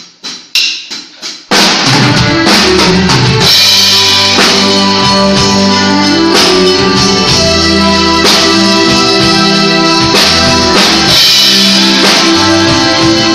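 A band playing without a singer: electric guitar, bass guitar and drums. Three sharp clicks about half a second apart count in, and the full band comes in together about a second and a half in.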